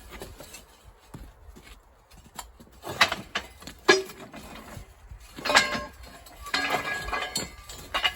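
Loose metal parts clinking and clanking with a brief ring: a couple of knocks a few seconds in, then a louder clank and a run of rattling clanks in the second half.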